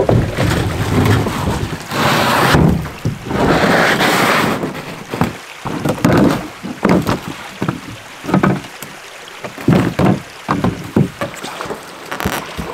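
A canoe being flipped upright and hauled through a shallow, rocky creek: water splashes and sloshes loudly twice in the first few seconds, then comes a run of irregular knocks, scrapes and splashes from the hull and from wading feet.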